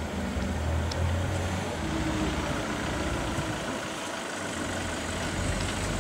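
Maserati GranTurismo MC Stradale's 4.7-litre V8 idling low and steady, dipping a little in the middle.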